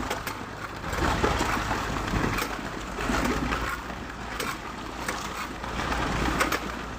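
Concrete pump truck's engine running with a steady low hum, with scattered knocks and clicks.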